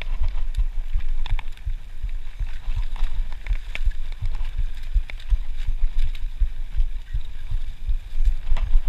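Mountain bike ridden fast over a rough dirt trail: rapid, irregular low thumps and wind buffeting on the microphone as the bike bounces over bumps and roots, with scattered sharp clicks from the bike.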